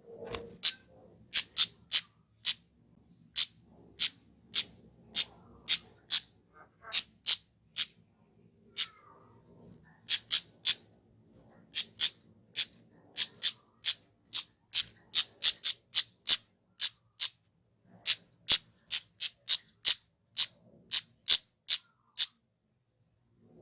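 Flowerpecker (kemade) calling: a long run of short, sharp, high chip notes, one to three a second, irregularly spaced.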